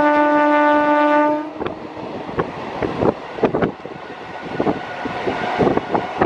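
Indian Railways electric train horn held in one long steady blast that cuts off about a second and a half in. Then the rattle and irregular clicking of a moving train's wheels and coaches, with wind on the microphone.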